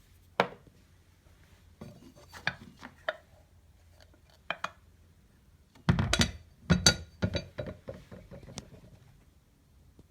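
Irregular metallic clinks and knocks of hard parts or tools being handled, scattered at first, then a dense cluster of louder knocks about six to nine seconds in. Some strikes ring briefly.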